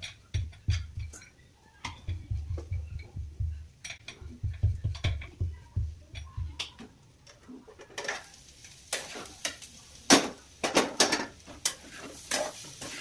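Dull, quick thumps and clicks of hands working balls of roti dough at a plate. From about eight seconds in, a steel spatula scrapes and clacks against a frying pan as dry-fried cauliflower is stirred, over a sizzle.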